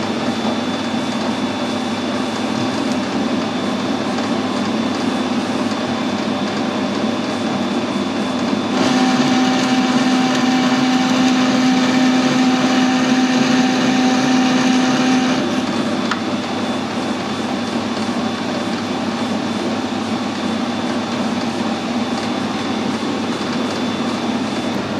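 Metal lathe running steadily while screw-cutting a 1.5 mm pitch thread with a single-point thread-forming tool. About nine seconds in, it gets louder for some six seconds with a steady hum and whine as the tool takes a threading pass, then drops back to the plain running sound.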